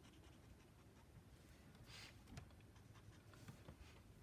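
Very faint scratch of a brush pen's tip on smooth Bristol paper: one soft swish about halfway through, followed by a few light clicks.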